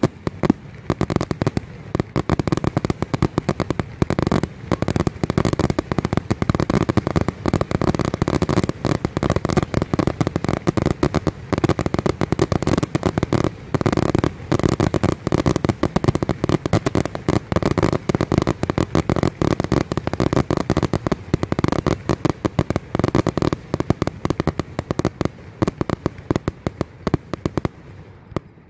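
Fireworks display going off at a rapid pace: a dense run of bangs and crackles many times a second, thinning out near the end.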